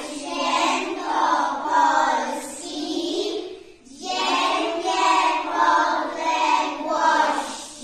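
Group of young children singing together in unison, in two phrases with a short break about four seconds in.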